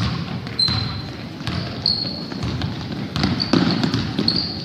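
Basketball game sounds in a gym: sneakers squeaking briefly on the court floor several times and a basketball bouncing, over low crowd chatter.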